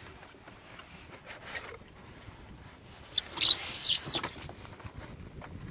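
A cardboard shipping box being opened: a loud tearing rustle about three seconds in lasting roughly a second, like packing tape being ripped or slit, with quieter handling rustles around it.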